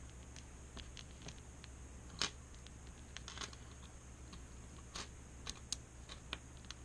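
Faint, sparse small clicks and taps of metal lock parts being handled as sidebar pins are worked out of a Schlage Primus interchangeable core, with a sharper click about two seconds in and several more in the second half.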